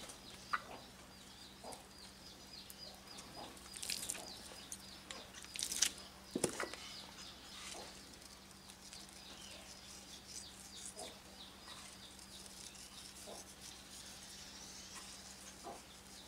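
Faint bird calls in the background, with scattered soft ticks and a few louder short sounds, over a steady low hum.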